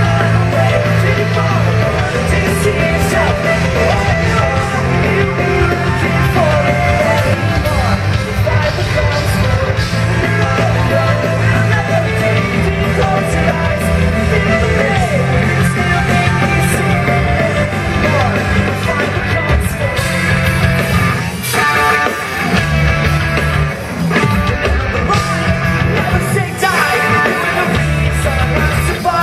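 Pop-punk band playing live through a festival PA, heard from the crowd: distorted electric guitars, bass and drums under lead singing. In the last third the bass and drums cut out briefly a few times in a stop-start passage.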